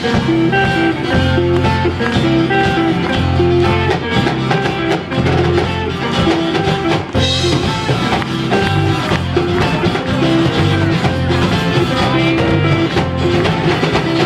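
Band music with no singing: an instrumental passage with guitar to the fore over a steady bass line.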